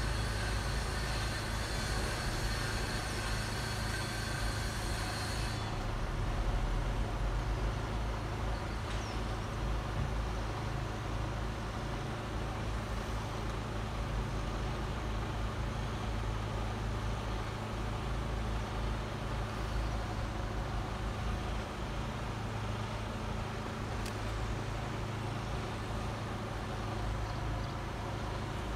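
Level crossing warning alarm sounding as steady high tones that cut off abruptly about five and a half seconds in, as happens once the barriers are fully lowered. Under it and after it, a steady low rumble like idling or passing road vehicles.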